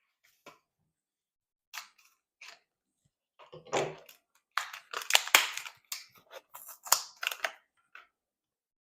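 Scissors cutting through a stiff plastic blister pack: scattered snips and crackles of the plastic, with a dense run of them about four to seven seconds in.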